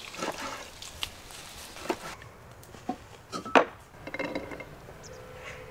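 A kitchen knife cutting raw lamb on a wooden cutting board, with sharp knocks of the blade about once a second. After that, dry chickpeas patter and clink into clay pots.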